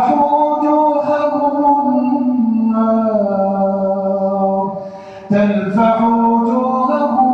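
A man chanting Quran verses in the drawn-out melodic tajwid style, holding long notes that slowly rise and fall, with a short pause for breath about five seconds in.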